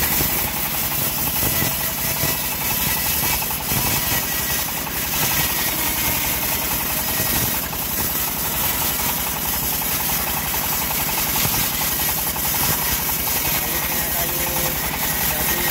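Homemade band sawmill running steadily, its blade sawing lengthwise through a teak log. There is an even, rapid low pulsing from the drive under a constant hiss of the cut.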